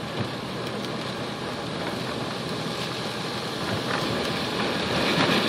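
Steady rushing of storm wind and rain from the early bands of Hurricane Irene, swelling near the end.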